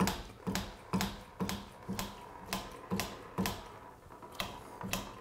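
Hand lever of a bench-mounted brake master cylinder being pumped, clicking about twice a second. Each stroke builds hydraulic pressure to push a piston out of a Honda GL1000 rear brake caliper.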